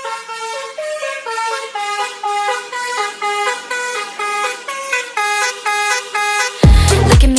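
Pop song intro: a tune played in short honking, car-horn-like two-note tones that step up and down in pitch, with no bass under them. Near the end a heavy dance beat with booming bass kicks comes in.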